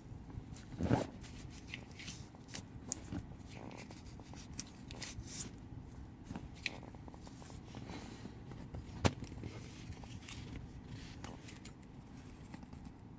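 Scissors and a soft Velcro adhesive strip being handled: scattered light rustles and small clicks, with a dull knock about a second in and a sharp click about nine seconds in.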